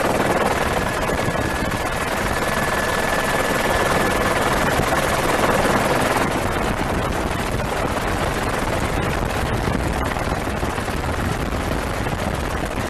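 Helicopter engine and rotor noise heard from on board: a loud, steady rush with a faint high whine that stops about halfway through.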